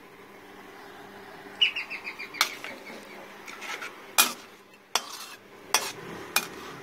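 Metal spatula knocking and scraping against a stainless steel wok while stirring a thick chilli sambal, with several sharp clanks roughly a second apart. About one and a half seconds in there is a quick run of high chirping clicks.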